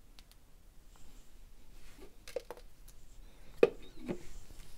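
Light clicks and knocks from small plastic and rubber parts being handled: a vacuum's valve capsule being worked to free its rubber valve. One sharp click about three and a half seconds in is the loudest sound, with a couple of softer knocks around it.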